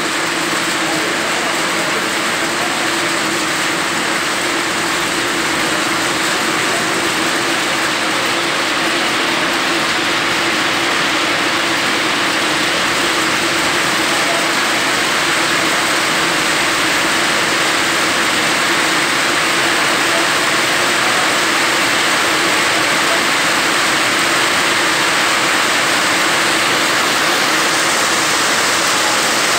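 Coach bus diesel engine idling steadily, with a constant hiss over it.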